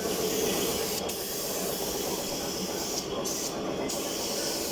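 Steady loud hissing noise, like spray or escaping air. The high part of the hiss drops out briefly about a second in and twice more around three seconds in.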